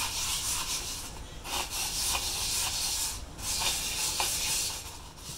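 Hand sanding a glued-up wooden sphere with a strip of sandpaper held in a cardboard tube, rubbed against it as a lap for the finishing pass. It makes a steady scratchy hiss, broken by short pauses about every two seconds.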